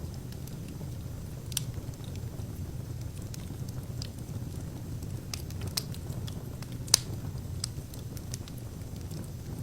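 Wood fire in a fireplace crackling: scattered pops and snaps over a steady low rumble, with one sharp, loud pop about seven seconds in.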